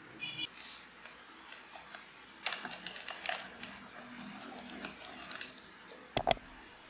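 Foil instant coffee sachet crinkling and rustling as its powder is shaken into a ceramic mug, a run of light clicks and rustles. Two sharp knocks come near the end.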